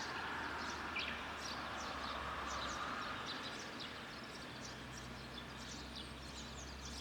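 Small birds chirping in many short, quick calls, overlapping throughout. A soft rushing noise swells and fades over the first few seconds, with a steady low hum beneath.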